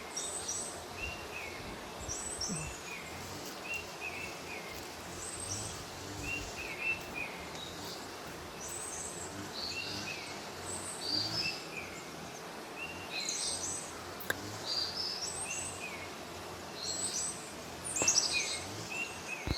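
Small birds chirping and singing: short repeated phrases, some lower and some higher pitched, over a steady outdoor background hiss. A few brief knocks or rustles come near the end.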